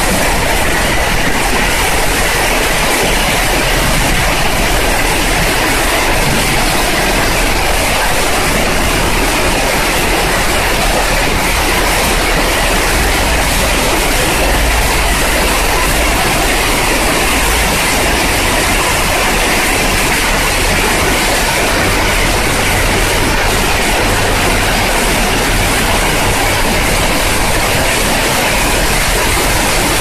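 Heavy downpour: a loud, steady rush of rain falling on pavement and trees.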